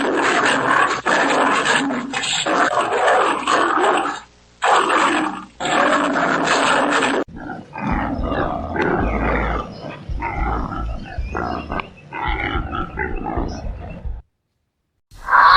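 Loud animal calls in two separate clips: a dense, noisy run of calls for about seven seconds, then a second clip of broken, lower calls over a deep rumble that cuts off abruptly about fourteen seconds in.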